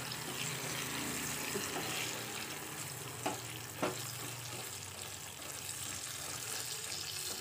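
Peanuts, chana dal, urad dal and dried red chillies sizzling steadily in hot oil in a small steel pan while a spoon stirs them, frying a tempering for tamarind rice. Two light clinks of the spoon against the pan come about halfway through.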